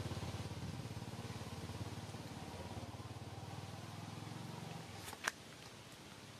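A small motor-vehicle engine, like a motorbike's, running steadily and fading out about five seconds in, then one short sharp squeak.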